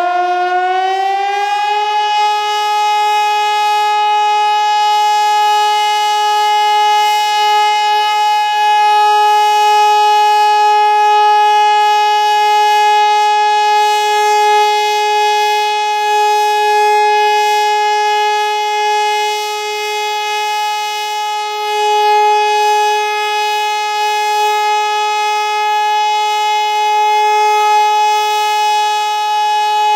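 Hörmann HLS 273 pneumatic high-power siren sounding the German all-clear ('Entwarnung') signal: one long steady tone, whose pitch finishes rising in the first two seconds and then holds level.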